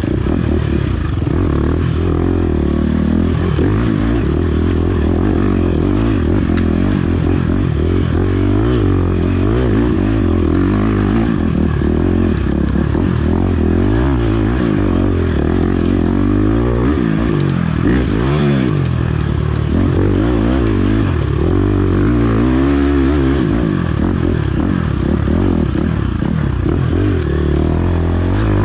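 Off-road dirt bike engine revving up and down continuously as it is ridden hard, heard from a camera mounted on board.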